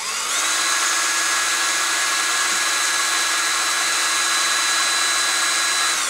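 Small high-speed rotary power tool grinding away the plastic of the headphone housing to widen the cutout for a new micro-USB socket. It spins up quickly, runs at a steady speed with a high whine over a hiss, and cuts off suddenly near the end.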